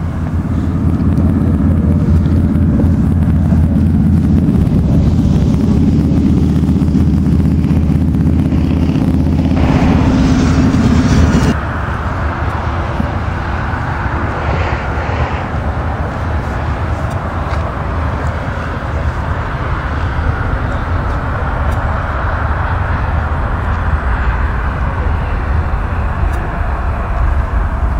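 Jet engines of an Embraer ERJ regional jet running at high power as it moves along the runway: a loud, low, steady drone that cuts off abruptly about eleven seconds in. After that comes a steadier, more distant jet hum and hiss from the airfield.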